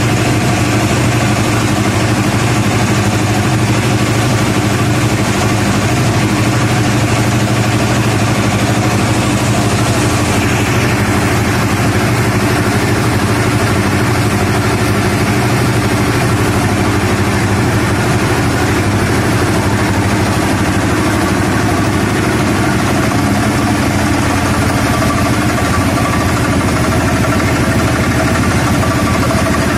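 ELGI 20 HP base-mounted reciprocating air compressor running steadily just after start-up, an even mechanical drone with a hiss that dies away about ten seconds in.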